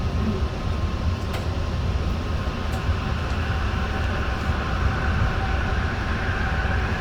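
Metro train pulling away from a station, heard from inside the carriage: a steady low rumble with a few faint clicks, and a motor whine that rises slowly in pitch as the train picks up speed.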